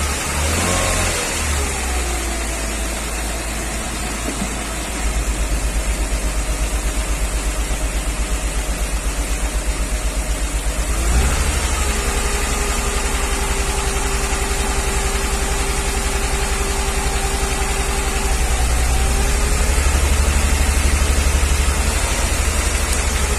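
Mercedes G320's 3.2-litre straight-six engine running at a held fast idle during a cylinder-by-cylinder injector cut-out test, with the light metallic tick the mechanic suspects is a piston knock. Its note changes about five seconds in, rises briefly near the middle and settles to a new steady tone, as cylinders are dropped.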